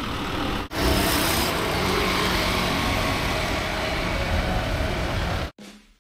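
Road traffic on a city street: the steady rush of cars and motorbikes passing. It breaks off briefly just under a second in and stops abruptly near the end.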